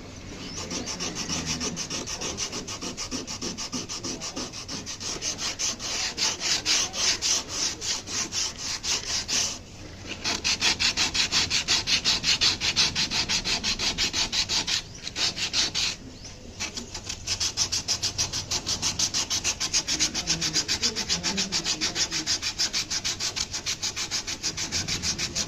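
Wood being sanded by hand in quick, even back-and-forth strokes, about four to five a second, with two short pauses.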